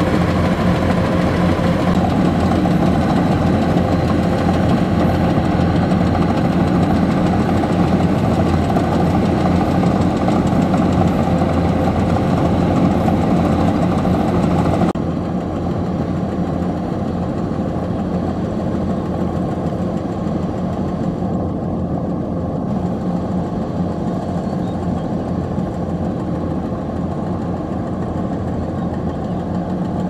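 Kubota DC-105X rice combine harvester's diesel engine running steadily as the machine works. It is close and loud at first, then quieter and farther off from about halfway through.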